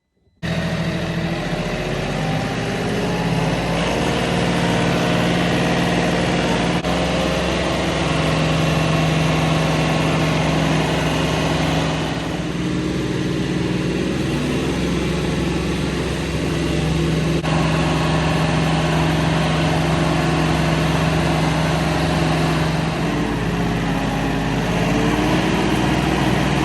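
A small engine running steadily and loudly, its pitch shifting a few times.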